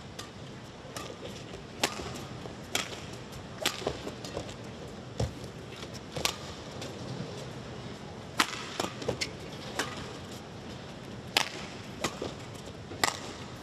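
Badminton rackets striking a shuttlecock back and forth in a fast rally: about a dozen sharp smacks at uneven intervals of roughly a second, with a duller thud about five seconds in, over a steady hall background.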